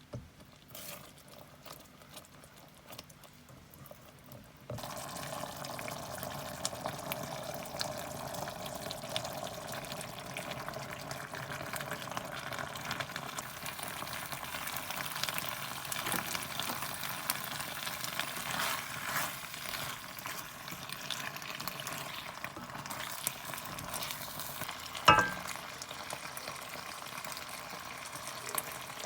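Food sizzling and crackling in a hot pan, starting suddenly about five seconds in after a few quiet clicks. A single loud ringing clink comes near the end.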